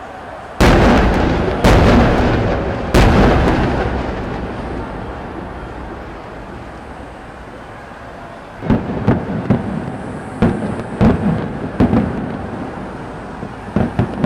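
Aerial firework shells bursting: three loud booms in the first three seconds, each dying away in a long rolling rumble. From about nine seconds a rapid string of smaller, sharper bangs follows.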